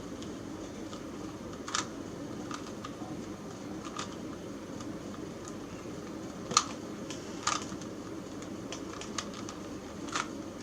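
A Rubik's Cube being turned by hand: scattered sharp plastic clicks as its faces are twisted, a few louder than the rest, over a steady low hum.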